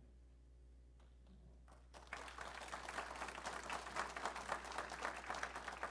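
Audience applauding, breaking out about two seconds in.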